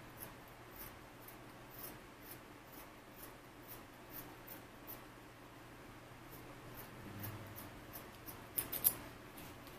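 Ordinary household scissors snipping through T-shirt fabric: a quiet run of short snips, about two a second, with a couple of louder snips near the end.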